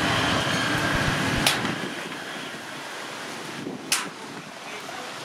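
Box truck passing on the road, its noise fading away about a second and a half in and leaving a steady outdoor hiss. Two sharp knocks about two and a half seconds apart.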